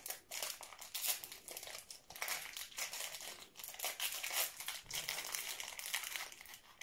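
Small crinkly plastic wrapper of a toy blind-bag packet being torn open and unwrapped by hand: irregular crinkling and crackling.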